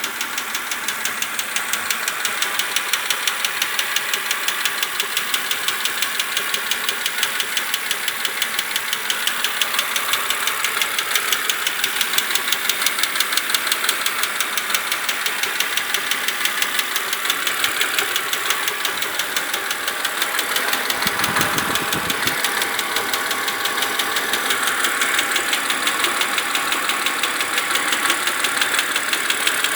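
BMW Z4 2.5i straight-six engine idling with a steady, rapid ticking from the engine.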